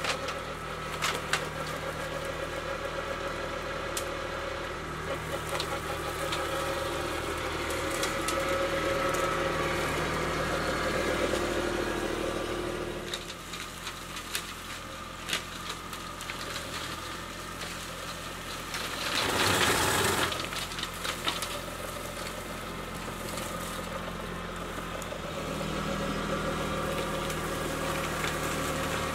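Kubota B2261 compact tractor's three-cylinder diesel engine running steadily while driving a front PTO flail mower that chops through brush and debris on the ground, with scattered sharp clicks and knocks of material struck by the flails. About two-thirds through, a louder rushing noise lasts for about two seconds.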